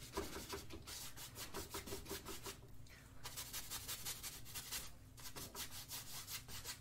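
A wide 2-inch paintbrush scrubbing paint across a stretched canvas in quick, repeated back-and-forth strokes, smearing the background colours about.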